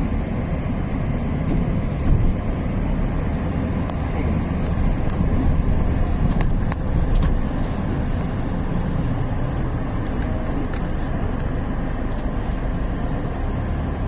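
Steady low rumble of a car driving along a street, road and engine noise, with two faint clicks about six and a half seconds in.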